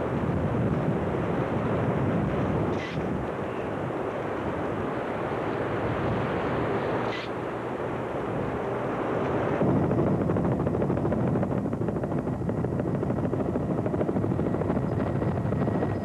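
Dense, steady rushing noise that changes about ten seconds in to a fast, even chopping, like a helicopter's rotor heard from an aerial news shot.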